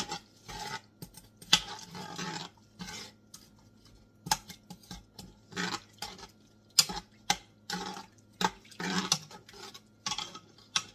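Long metal spoon stirring broth and collard greens in the inner pot of an electric pressure cooker: irregular swishing strokes broken by sharp clinks and scrapes of the spoon against the pot.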